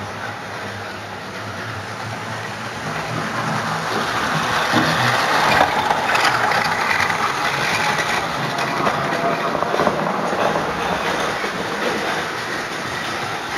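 Model train running past on the track close by, wheels clicking and rattling over the rails, growing louder about four seconds in and fading again near the end, over a steady low hum.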